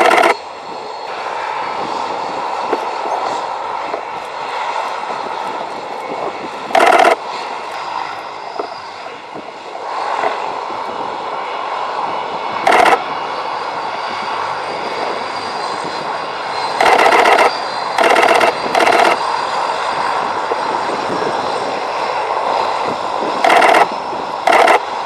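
Aircraft engine running steadily, with a faint high whine over the noise. Several short, very loud bursts of noise break in, a cluster of three about two-thirds of the way through.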